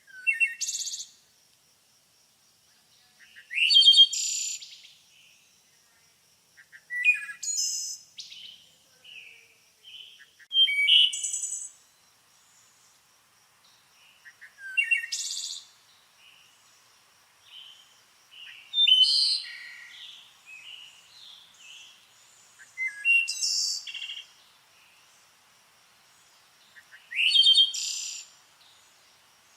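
A songbird singing: short, loud phrases, each opening with a quick rising note, repeated about every four seconds, with softer chirps in between.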